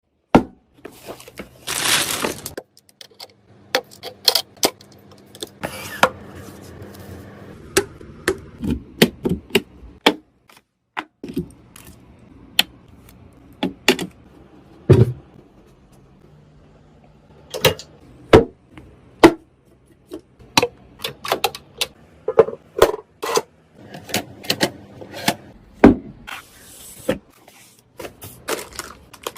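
Irregular hard clicks, taps and small rattles of computer parts being handled and fitted together, with a few short rustling stretches and a faint low hum underneath.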